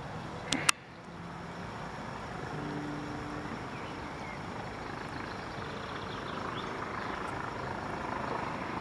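Steady outdoor background noise, with two sharp clicks just over half a second in.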